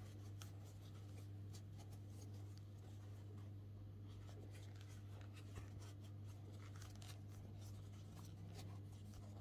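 Faint rustling and soft scratchy ticks of a crochet hook drawing T-shirt yarn through stitches, over a steady low hum.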